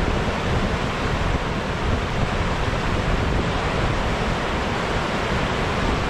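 River water rushing steadily over a low weir that is fully overflowed by high water, with wind rumbling on the microphone.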